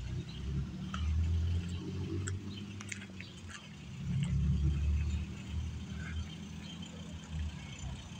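Low rumble of wind buffeting a phone's microphone, swelling twice, with a few faint ticks.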